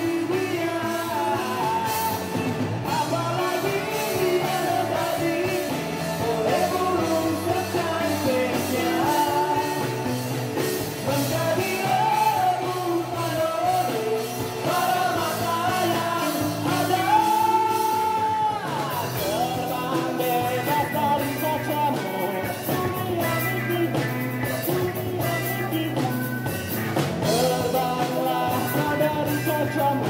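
Live indie rock band with a singer, vocals over keyboard, electric guitar and drums. The singer holds one long high note about seventeen seconds in, and the cymbals come in busier just after it.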